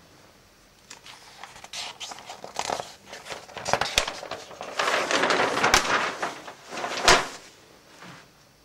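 Irregular rustling and bumping, with three sharp clicks or knocks in the second half.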